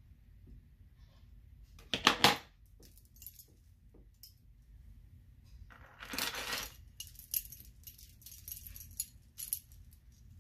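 Small metal charms and beads clinking and jingling as a beaded bracelet is handled. There is a short louder rattle about two seconds in and another about six seconds in, then a run of light clicks.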